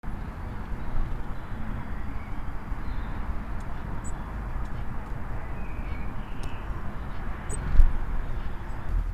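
Steady outdoor garden background noise with a few faint, short bird calls, and a single low thump on the microphone near the end.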